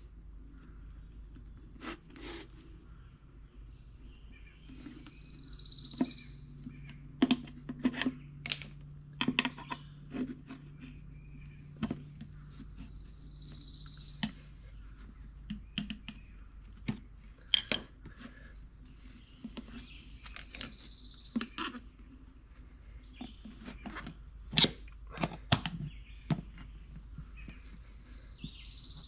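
Bicycle tire levers clicking and knocking irregularly against a small 4.10/3.50-4 wheelbarrow wheel rim and tire as the tire is worked onto the rim. Crickets chirr steadily throughout.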